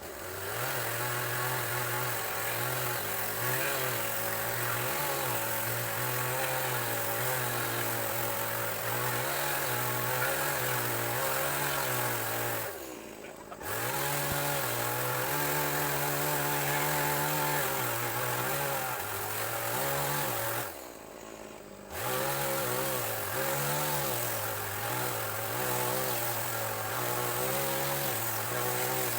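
Small motor-driven machine, like a petrol power tool, running with its speed rising and falling. It drops away briefly twice, about 13 and 21 seconds in, then picks up again.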